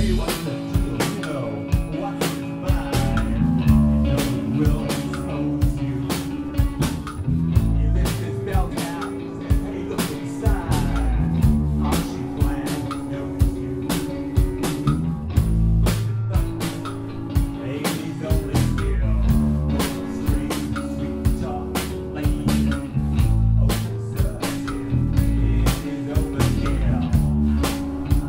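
Live rock band playing: distorted electric guitar, electric bass holding long low notes and a drum kit beating steadily throughout.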